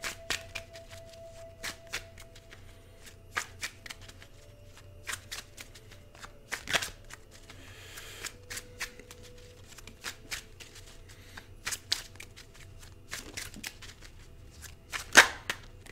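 A deck of Bicycle playing cards being shuffled by hand, with irregular sharp snaps of the cards and a brief hiss of sliding cards a little before halfway. The loudest snap comes about a second before the end.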